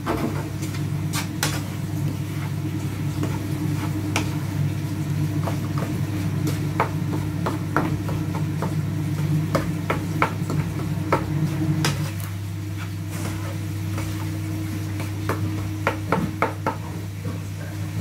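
Scattered light clicks and knocks of kitchen utensils and cookware over a steady low hum; the hum eases slightly about two-thirds of the way through.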